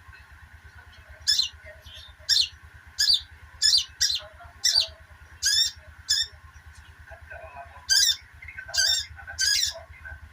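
A sogok ontong (sogon) bird giving its 'ngeriwik' call: about a dozen short, sharp, high call notes at irregular gaps, each sweeping downward, over a steady low hum.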